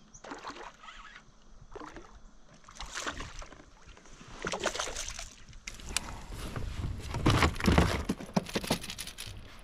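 Water splashing in repeated bursts as a hooked smallmouth bass thrashes at the surface beside a kayak, growing louder and busier toward the end of the fight, loudest near the end.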